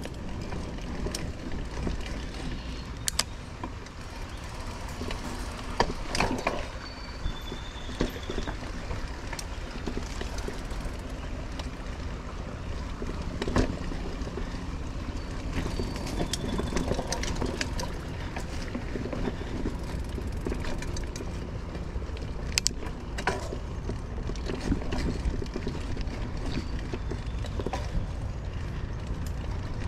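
Mountain bike ridden over a dirt trail: a steady low rumble of tyres on the ground, with scattered sharp clicks and knocks of the bike rattling over bumps.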